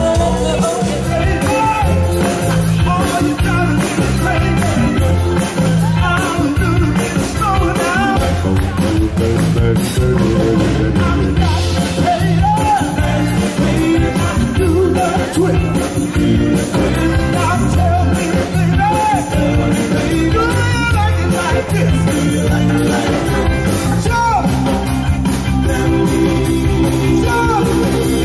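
Live band playing a Motown-style soul song with a steady drum-and-bass beat, a vocalist singing over it.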